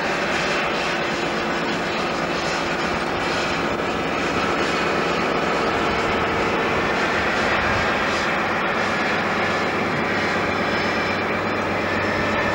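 InterCity 125 (HST) diesel power cars passing at close range: a steady engine roar with a whistling tone over it, together with the rumble of the train on the rails.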